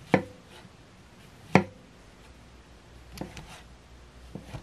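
Kitchen knife slicing a button mushroom and knocking on a wooden cutting board: two sharp knocks in the first two seconds, each with a short ring from the board, then a few lighter taps toward the end.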